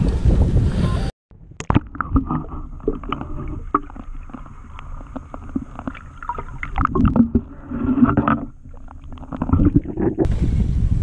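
Wind buffeting the microphone aboard a fishing boat, breaking off abruptly about a second in. Then a quieter stretch of scattered knocks and clatter in the boat, with the wind noise returning near the end.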